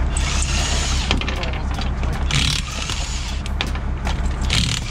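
Cordless impact wrench hammering in three short bursts, taking lug nuts off a car wheel, over the low steady rumble of an idling truck engine.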